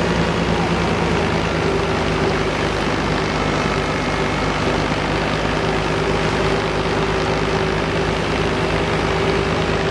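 Tractor-driven wheat thresher running steadily while wheat bundles are fed into it: a constant machine drone from the tractor engine and the threshing drum, with a steady held tone.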